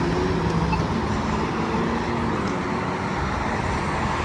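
Road traffic noise: a steady wash of passing cars, with a faint engine hum underneath.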